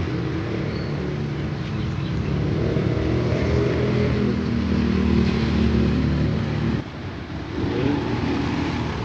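Road traffic: motorbike and car engines running steadily as they pass along the street.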